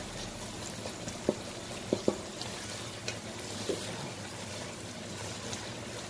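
Sliced onions sizzling in hot oil in a pot as a wooden spatula stirs them, with a few sharp knocks of the spatula against the pot, the loudest about two seconds in.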